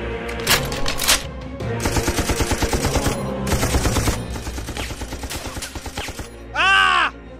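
Gunfire sound effects over background music: two loud single shots, then a rapid burst of automatic fire. Near the end comes a short, loud tone that rises and then falls.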